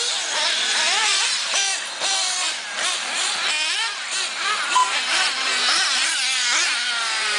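Several 1/8-scale RC buggies' small nitro engines whining and revving, their overlapping pitches rising and falling as they race.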